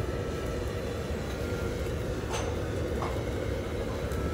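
Steady low rumble of restaurant kitchen background noise, with two faint light clicks about halfway through.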